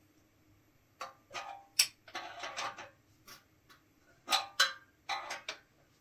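Irregular metallic clicks and clinks of a metal hand tool working the tank-lift mounting bolts, some with a short ring, in uneven bunches rather than a steady rhythm.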